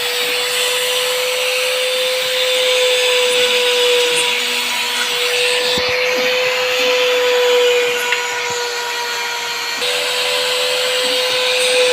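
Small CNC router spindle running with a steady high whine while the bit mills aluminium composite panel, with a hiss of cutting over it.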